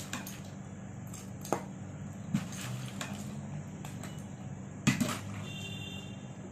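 A dog eating dry kibble from a stainless steel bowl: scattered crunches and clinks against the metal. About five seconds in, a cup of kibble is tipped into the bowl with a louder clatter.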